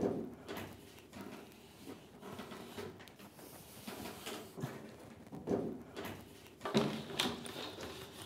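Long thin chestnut-wood strips being bent and coiled by hand: irregular creaks, scrapes and light knocks of wood, the loudest knock right at the start.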